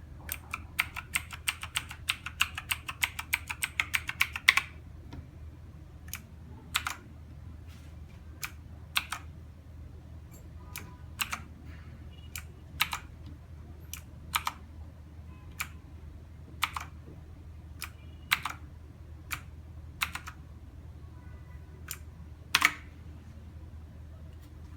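Mechanical keyboard keys being pressed: a fast burst of typing for about four seconds, then single keystrokes spaced out one at a time, the loudest near the end. A steady low hum sits underneath.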